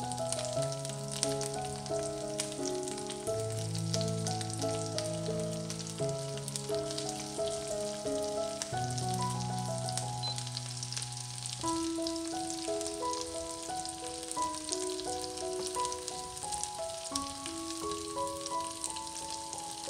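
Asparagus spears frying in butter and oil in a non-stick pan: a steady crackling sizzle with many fine pops. Background music of slow held notes plays underneath, its low notes dropping out about twelve seconds in.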